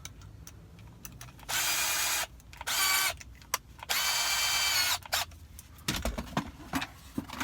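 Power drill running in three short bursts, a steady whine each time, as it bores a pilot hole into thin, lightweight cabinet wood. Small clicks and a low knock sound between the bursts.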